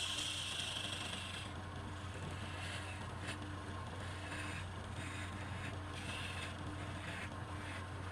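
Wood lathe running with a steady hum while a turning tool scrapes the spinning wood: a continuous cut for about the first second and a half, then short irregular strokes.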